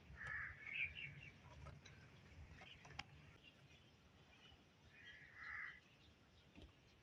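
A bird calling twice: short harsh caws, one right at the start and another about five seconds later, with a single sharp click about three seconds in.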